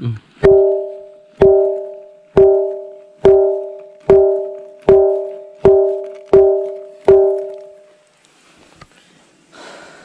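A granite 'bell stone' boulder struck nine times with a piece of wood, about once a second. Each blow gives a clear two-note ring that fades over about a second, like a temple bell.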